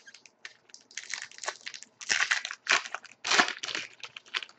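Foil wrapper of a 2011-12 Upper Deck SPx hockey card pack crinkling in the hands as it is torn open, in a run of short crackly bursts.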